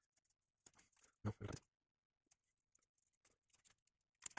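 Near silence with a few faint handling ticks, broken about a second in by a brief low mumble from a man's voice.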